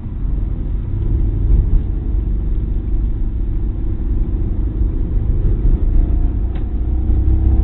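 Opel Corsa's engine heard from inside the car, pulling with its pitch slowly rising as the car accelerates, over a heavy low rumble of road and tyre noise.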